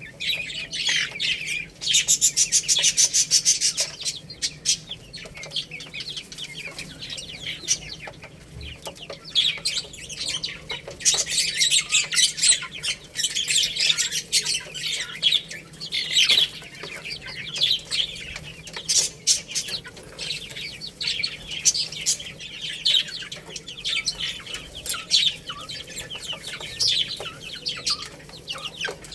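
Baby chicks peeping, many short high calls overlapping, with a louder stretch of rapid pulsing about two seconds in.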